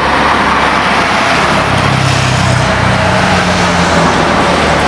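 Airbus A320-214 airliner's twin jet engines running loud and steady at high power as it begins its takeoff run, with a low hum that comes and goes midway.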